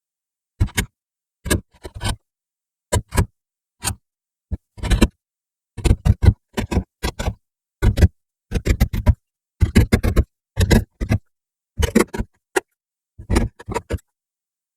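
Hand-shaping strokes on a small wooden knob: short scraping strokes of a hand tool against the wood, coming in uneven clusters with brief pauses between.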